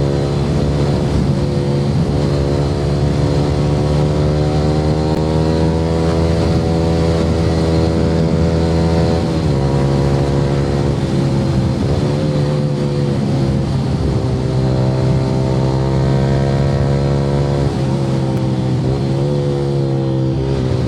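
Yamaha R15 V3's single-cylinder engine running through an Akrapovic aftermarket exhaust while riding. The steady engine note climbs slowly, dips briefly about nine seconds in, then holds with small throttle changes near the end.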